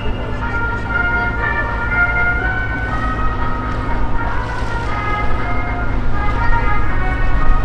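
Music with a melody of held notes that step from pitch to pitch, over a steady low rumble.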